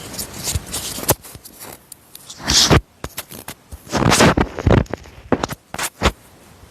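Irregular rustling and scraping, broken by several sharp clicks and knocks, with the loudest scrapes about two and a half and four seconds in.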